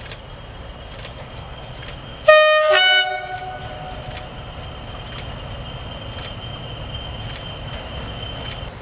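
Railway locomotive's whistle or horn giving one short two-note toot about two seconds in, under a second long, a higher note falling to a lower one. A faint steady high-pitched whine lingers for several seconds after it.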